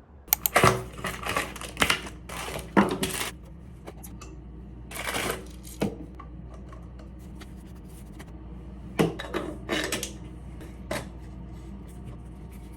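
Household clatter: bursts of sharp clicks and knocks, over a steady low hum. One bunch of knocks comes in the first few seconds, one about five seconds in, and another around nine to eleven seconds in.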